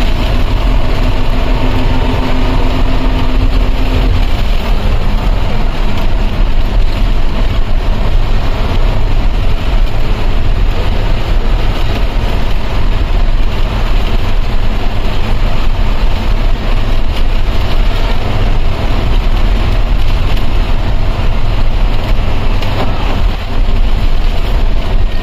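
Inside the cabin of a moving long-distance coach: engine and road noise run loud and steady. A steady tone sounds for about the first four seconds and then stops.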